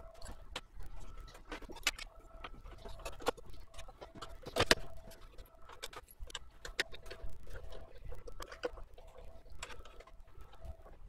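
Irregular clicks and knocks of an Xbox One S's metal shield and plastic casing being handled and fitted together during reassembly, the loudest knock about halfway through, over a faint steady tone.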